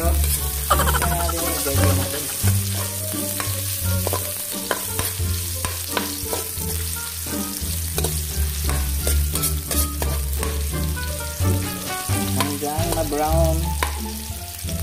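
Ginger strips sizzling in hot oil in a wok, with a metal spatula scraping and tapping against the wok as they are stirred, in many short sharp ticks.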